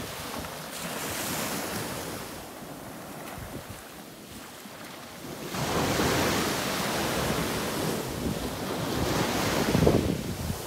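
Small waves washing up and breaking on a sandy beach, with wind rumbling on the microphone. The surf gets louder a little past halfway through.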